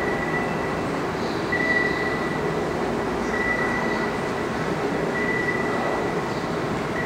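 Steady hum and hiss of a large hangar hall, with a thin high whistle that comes and goes about every two seconds.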